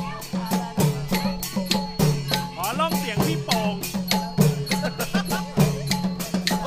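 A band of Northern Thai procession drums, slung from the players' shoulders and beaten by hand, playing a steady driving rhythm of about three to four beats a second with other percussion. A few voices call out briefly about halfway through.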